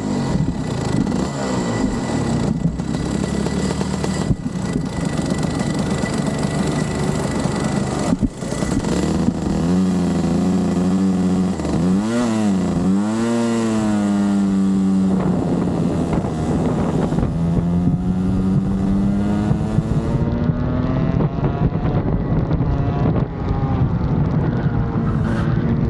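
Rotax kart's two-stroke engine at racing speed, its pitch dropping and climbing again several times in quick succession as the kart brakes and accelerates through corners, then rising steadily on a long pull, with a steady hiss of wind and tyres under it.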